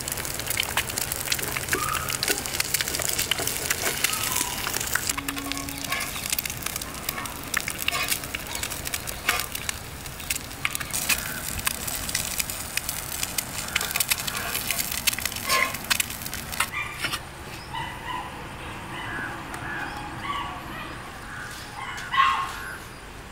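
Eggs sizzling and crackling as they fry on a hot iron griddle over a wood fire. About two-thirds of the way through the sizzling stops, leaving quieter scattered sounds and one short loud sound near the end.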